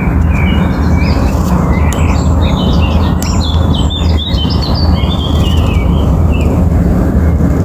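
Many small birds chirping and twittering at once, short quick notes overlapping throughout, over a steady low rumble.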